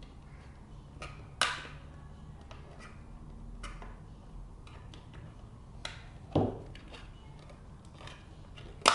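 Plastic snap clips of a Seagate One Touch portable hard drive enclosure clicking and cracking as the case is pried apart with a kitchen knife: several sharp, separate clicks, the loudest about a second and a half in, about six and a half seconds in and at the very end. The clips are breaking as the case comes open.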